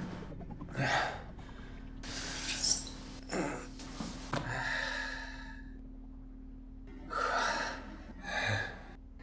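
A man breathing heavily and gasping, about six loud breaths with short pauses between them.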